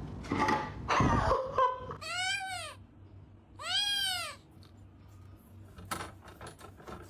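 A cat meowing twice, each meow a clear call that rises and falls in pitch, after a second or so of rustling and knocking.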